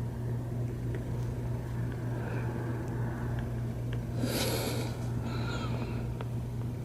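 Steady low electrical or machine hum, with faint small ticks and a brief rustle of handling about four seconds in.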